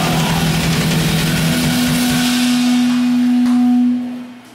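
Death metal band playing live, closing a song on a held, distorted guitar note that rings on for a couple of seconds after the drums drop away, then cuts off about four seconds in.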